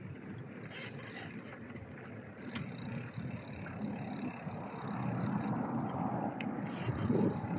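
Bicycle being ridden, its rear freewheel ticking on and off as the rider coasts, over a low rumble of riding noise that grows louder toward the end.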